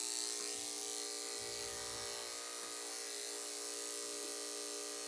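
Corded electric dog-grooming clippers running with a steady, unchanging hum.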